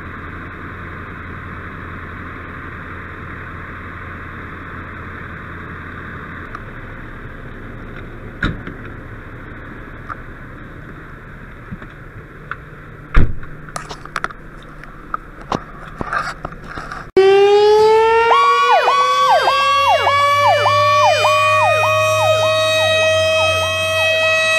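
A steady engine drone with scattered knocks and clatters of gear being handled. About two-thirds of the way through, this cuts to a loud emergency-vehicle siren on a passing fire company truck: a wail winding up in pitch with a fast electronic yelp over it.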